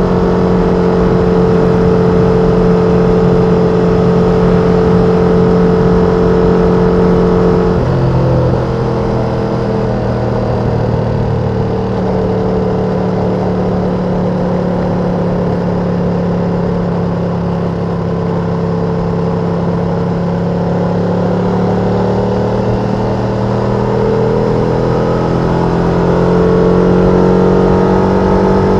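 Ducati Panigale V2's L-twin engine on its stock exhaust, running at steady revs under way. About eight seconds in, the engine note steps abruptly to a new pitch. It then slowly sinks before building again near the end.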